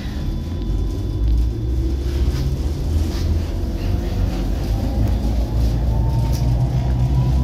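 Tatra tram pulling away from a stop and gathering speed: low rumble of the wheels and running gear, with the electric traction motors' whine rising steadily in pitch through the second half.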